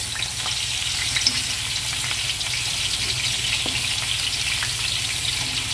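Raw chicken pieces sizzling in hot ghee in a karahi: a steady crackling hiss as the meat starts to fry.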